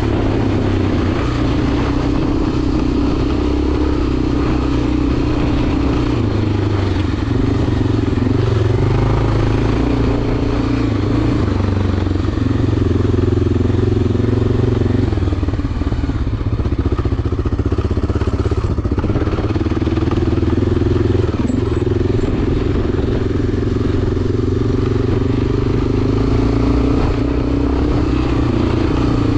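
Enduro motorcycle engine running steadily as the bike is ridden, its note rising and falling gently with the throttle in slow swells.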